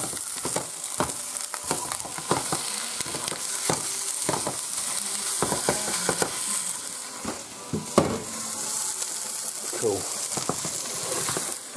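Lamb shanks sizzling steadily in a frying pan as they brown, with repeated clicks and knocks of tongs turning the meat against the pan, one sharper knock about eight seconds in.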